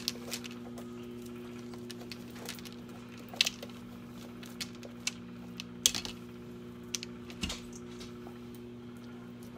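Pampered Chef Scoop Loop, a wire-loop scraper, scraping the inside of a small pumpkin: irregular short scrapes and clicks, over a steady low hum.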